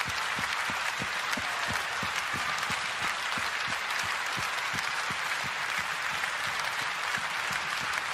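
Large audience applauding steadily, with a regular low beat about three times a second running underneath the clapping.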